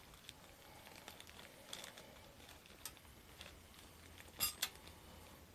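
Quiet room with a few faint clicks and one brief, sharper double click about four and a half seconds in, from small kitchen items being handled.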